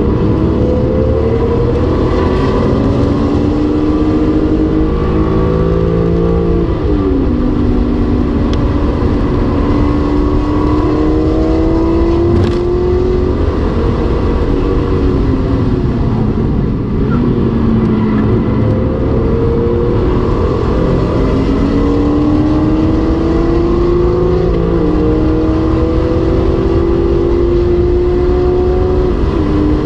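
BMW E46 M3's straight-six engine, heard from inside the cabin, pulling hard through the gears on track: its pitch climbs toward about 7,000 rpm and drops sharply at each upshift. Around midway it winds down once as the car slows, then climbs again.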